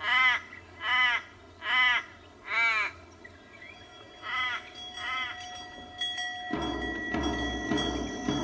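A crow cawing: four loud caws a little under a second apart, then two fainter caws after a short pause. About two-thirds of the way in, steady background noise with thin, high, unchanging tones comes up.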